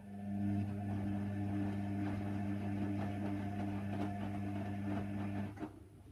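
Hoover Nextra HNWL 7146 washer dryer giving a steady electric hum with a rough crackle over it. It starts at once and cuts off sharply after about five and a half seconds.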